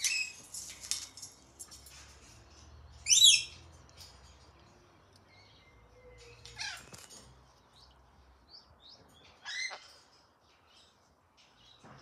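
Pet rainbow lorikeet calling: one loud call about three seconds in, then two shorter calls falling in pitch later on. Rustling near the start.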